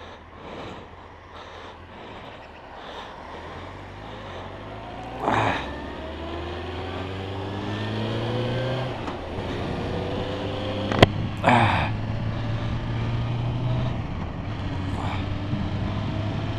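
Motorcycle engine idling, then pulling away and accelerating, its pitch rising and dropping back at each gear change. A sharp click comes about eleven seconds in, between short bursts of noise.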